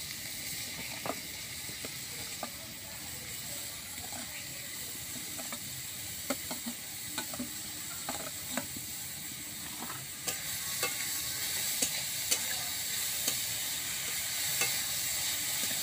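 Grated raw papaya sizzling in hot mustard oil in a wok (karai), with the spatula scraping and knocking against the wok and plate as it is pushed in and stirred. The sizzle grows louder about ten seconds in.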